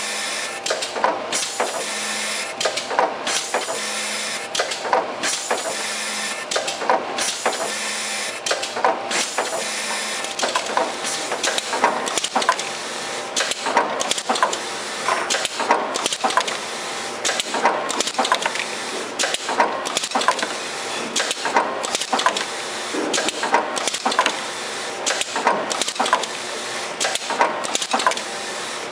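Automatic syringe labeling machine running: a steady mechanical whir and hiss with a regular clatter of clicks and clacks, roughly one every second or two, as syringes are indexed through the stations and labeled.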